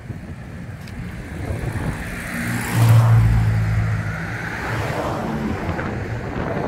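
A road vehicle passing close by, its engine and tyre noise swelling to a peak about three seconds in and then slowly fading, with wind on the microphone.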